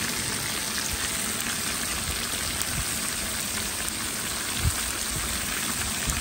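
Ribs and sliced onions sizzling steadily in a hot kazan, a constant frying hiss.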